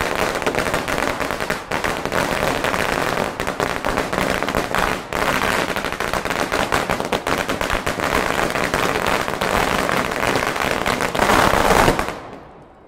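A long string of Chinese firecrackers going off in a rapid, unbroken rattle of bangs, loudest near the end and cutting off suddenly about twelve seconds in.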